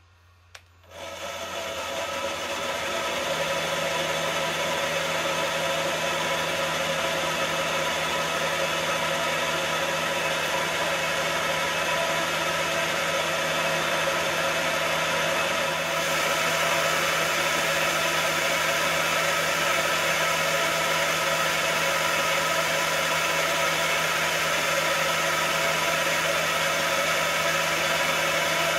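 Milling machine spindle starting about a second in, running up to speed and then running steadily, while a three-angle (30°, 45°, 60°) valve seat cutter is fed into a valve seat of a classic Mini 12G940 cast-iron cylinder head to recut it.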